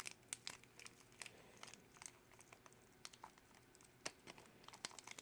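Faint crinkling and small clicks of a plastic blind-bag wrapper being torn open and handled.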